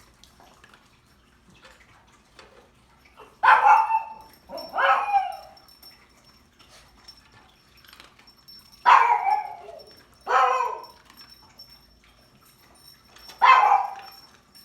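Pug making weird, drawn-out barks that fall in pitch. They come in pairs about a second and a half apart, a pair every five seconds or so.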